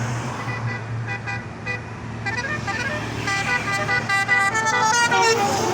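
Bus 'telolet' Basuri multi-tone musical air horn playing a quick tune of short notes at changing pitches, sparse at first and then rapid and louder from about three seconds in, over the steady hum of the passing bus's engine.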